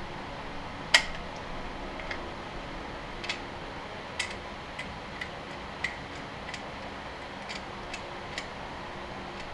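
About a dozen sharp, irregularly spaced metal clicks and clinks, the loudest about a second in, as hands work a part loose at the rear of a tractor engine block.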